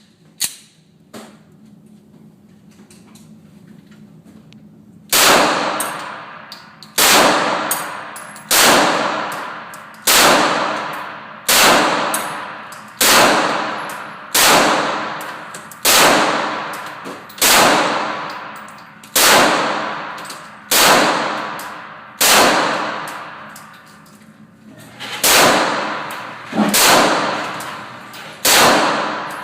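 Glock 19 9mm pistol fired in slow, single shots, about sixteen shots at an even pace of roughly one every one and a half seconds, each loud report followed by a fading echo. A few light clicks come first, before the shooting starts about five seconds in.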